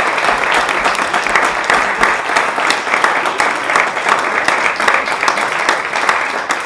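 Wedding guests applauding, many hands clapping at once in a steady, dense patter.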